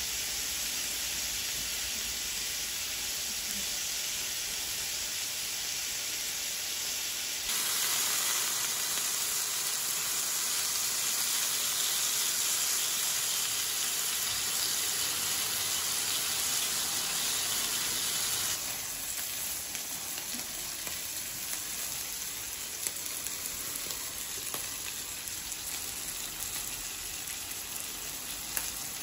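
Beef pieces sizzling in fat on a ridged electric grill plate. The sizzle suddenly grows louder and brighter about a quarter of the way in and drops back about two-thirds through, with a couple of faint ticks near the end.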